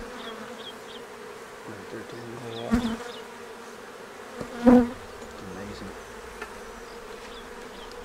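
Honeybees buzzing in a steady hum around an open hive with frames lifted out. Two short louder noises break through, the louder one about halfway through.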